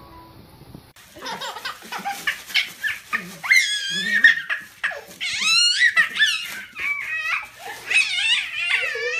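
A dog whining in high, wavering calls that slide up and down, starting about a second in.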